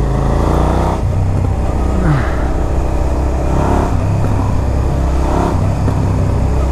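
Suzuki SV 650's V-twin engine riding along under throttle, its pitch climbing and dropping back several times as it changes gear, with wind noise on the microphone.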